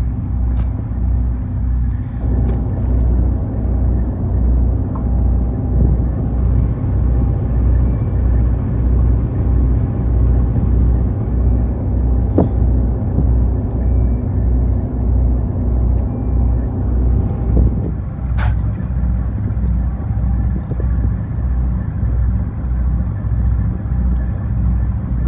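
An engine running steadily with a low, even throb of about one and a half pulses a second. A single short, sharp click comes about eighteen seconds in.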